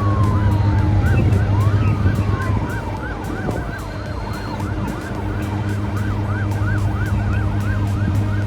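Emergency vehicle sirens in a rapid yelp, rising and falling about three to four times a second, with two long falling siren tones in the first half, over a steady low engine drone.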